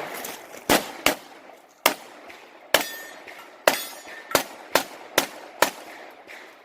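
Nine pistol shots fired during a practical shooting stage, spaced unevenly at first and then coming faster, about two a second, in the last few shots.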